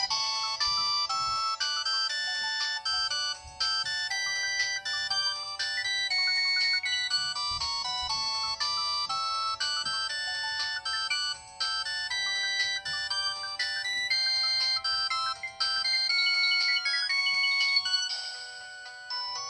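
LG TM125 (LX125) mobile phone playing one of its ringtones: a bright electronic melody with several notes at once, giving way to a different tune near the end.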